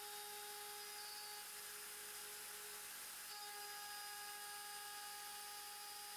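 Faint steady whine of a Mostly Printed CNC router machine running, several steady tones whose pitch shifts slightly about three seconds in.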